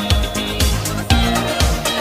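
Background music: an upbeat disco-style track with a steady beat of about two beats a second.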